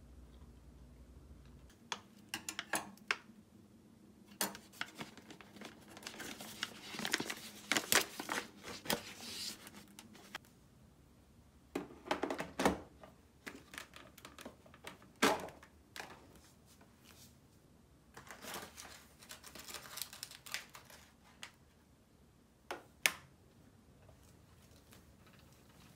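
Kitchen handling noises: rustling and crinkling, with scattered sharp clicks and knocks, coming in irregular bursts with short pauses between.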